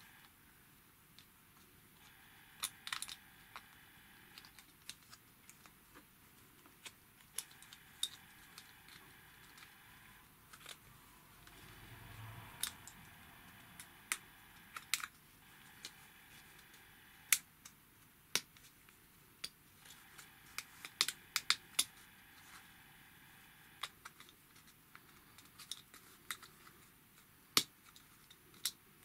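Small sharp clicks and taps at irregular intervals: thin plastic kit pieces being handled and pressed together by hand.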